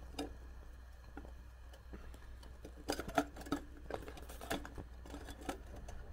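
Light clicks and taps of a knife and butter against an aluminium frying pan, most of them bunched about three seconds in, over a low steady hum.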